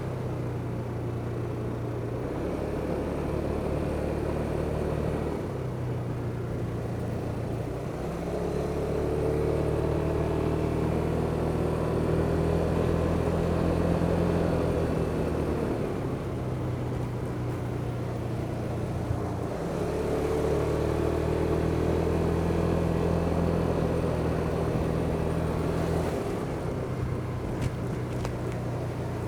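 Kymco Superdink 300 maxi-scooter's single-cylinder engine running under way with a steady drone. Its pitch rises through two longer pulls, in the first half and again about two-thirds of the way in, as the scooter speeds up, and eases back in between.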